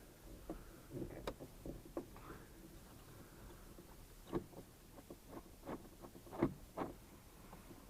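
Faint, scattered clicks and light knocks of hands working screws and a plastic trim panel loose in a tractor cab, a few sharper knocks in the second half.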